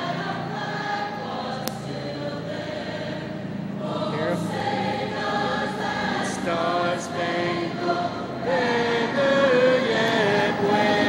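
The national anthem being sung over the stadium loudspeakers, long held notes growing louder toward the end.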